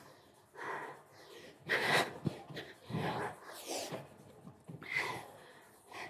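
A woman breathing hard from exertion during burpees and squat jumps: sharp, noisy exhales and gasps about once a second. There is a single thump about two seconds in.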